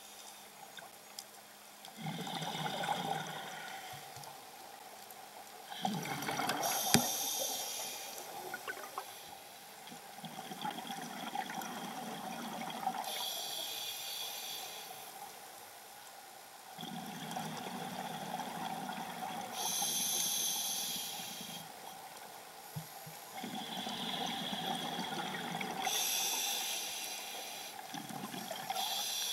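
Scuba diver breathing through a regulator underwater, in slow, regular breath cycles about every six to seven seconds, each with a stretch of bubbling on the exhale.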